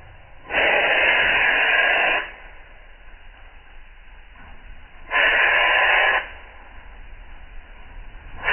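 Aerosol spray can spraying coating onto a truck frame in bursts: two hisses of a second or more each, and a third starting near the end.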